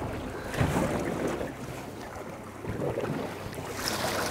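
Wind buffeting the microphone and sea water slapping against the hull of a drifting boat, swelling and easing unevenly.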